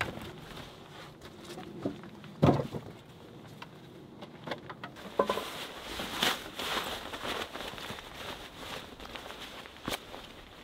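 A man moving about on snowy ground and shouldering a backpack: footsteps, rustling of jacket and pack straps, and a few sharp knocks, the loudest about two and a half seconds in.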